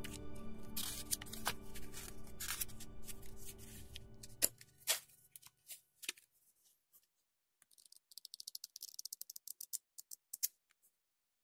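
Paper rustling and crinkling as a small printed phone manual is handled and its pages turned. Later comes a fast, even run of small ticks, about ten a second for nearly three seconds, as the booklet's page edges are riffled under a thumb.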